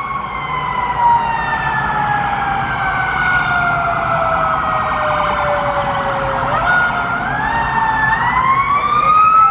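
Fire truck siren wailing, its pitch sliding slowly down for several seconds, then climbing back up about seven seconds in, over a steady rumble of traffic.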